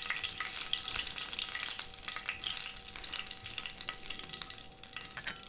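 Ajwain seeds and curry leaves crackling and sizzling in hot oil in a nonstick frying pan while a spatula stirs them: a tempering being roasted. A faint steady tone runs underneath.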